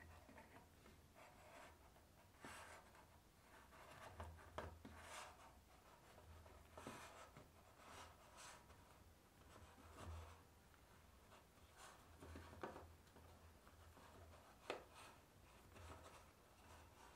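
Faint, irregular rustling and rubbing as hands handle a thin sheet of chocolate tart dough and press it into a fluted tart tin, with two light clicks, one about a third of the way in and one near the end.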